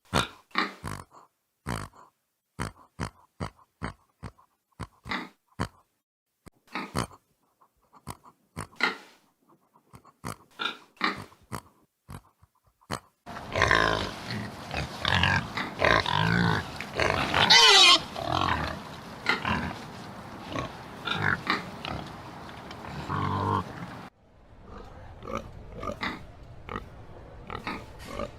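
Pigs grunting: short separate grunts with gaps between them for about the first half. Then a louder, busier stretch of many overlapping grunts and calls over background noise, easing to scattered grunts near the end.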